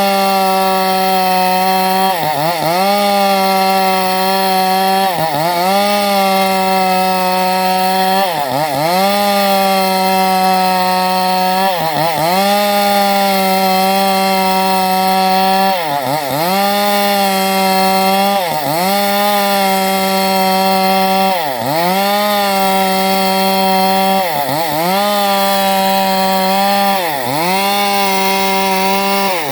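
Two-stroke chainsaw running at high revs while cutting teak wood. Its engine pitch dips briefly and recovers about every three seconds.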